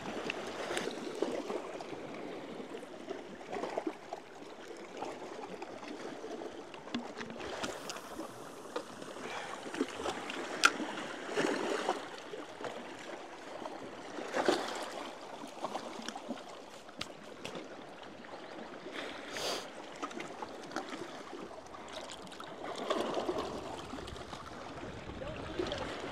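Small waves lapping and gurgling against shoreline rocks, with a few brief sharper splashes or knocks scattered through.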